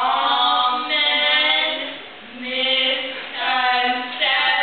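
Two young women's voices singing together in unison into one microphone, unaccompanied, in several long held phrases.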